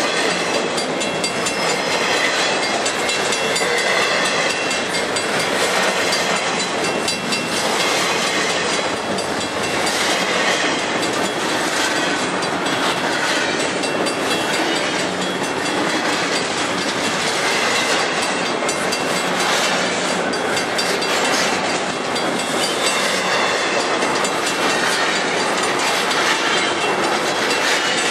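Cars of a long intermodal freight train rolling past at close range: a steady loud rumble and rattle of steel wheels on the rails, with repeated clicks as the wheels pass over the rail joints.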